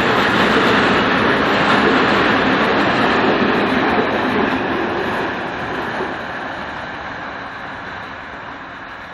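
A freight train of loaded open wagons rolling past, its wheels rumbling steadily on the rails. The last wagon passes about four seconds in, and the rumble then fades as the train draws away.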